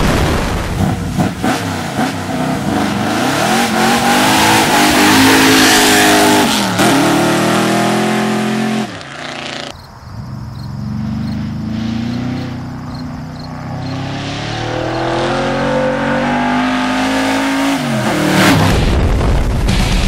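ZZ572 big-block V8 in a GMC pickup accelerating hard, its pitch climbing and dropping back at each gear change, several times over. Heavy wind noise runs through the first half. A loud rush comes near the end as the truck comes close.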